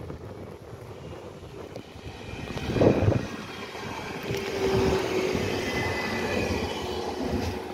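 Electric multiple unit passing close by, its wheels rumbling and clattering on the rails, loudest about three seconds in. A steady whine joins from about four and a half seconds in.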